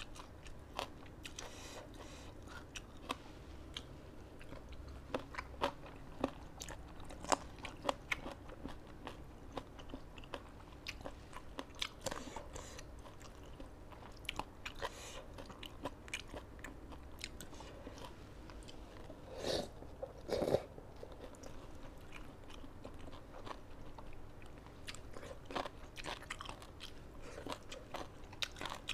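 Close-miked chewing and crunching of a spicy salad with crisp raw vegetables: many small crunches throughout, with two louder mouth sounds a second apart about two-thirds of the way through.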